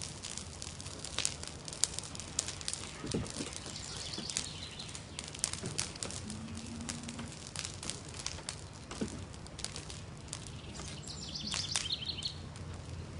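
Dry pine Christmas tree burning, its flames crackling with many scattered sharp pops. A few faint chirps, like a bird's, come in about four seconds in and again near the end.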